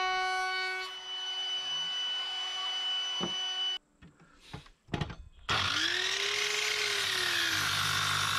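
Handheld wood router running steadily for about four seconds. It cuts off sharply. After a short gap a sliding mitre saw spins up and cuts through a squared timber beam, its motor note rising and then sagging under the load of the cut.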